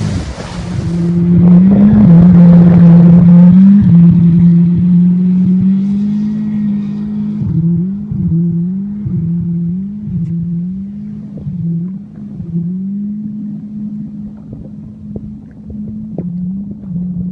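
Motorized watercraft engine running at speed on open water: a steady drone whose pitch dips and recovers again and again, loudest in the first few seconds and then gradually fading. Wind and spray hiss briefly at the start.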